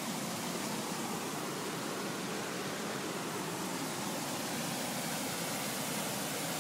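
Flash-flooded creek rushing over a forest crossing and cascading past rocks: a steady, even rush of water.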